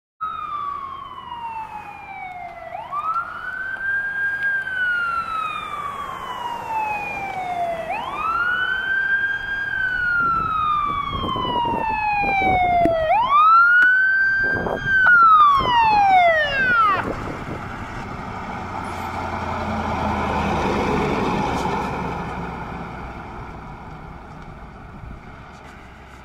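Fire engine siren wailing, each cycle a quick rise and a slow fall in pitch about every five seconds, then dropping away and stopping about 17 seconds in. After that, truck engine and road noise swell and fade, loudest about 21 seconds in.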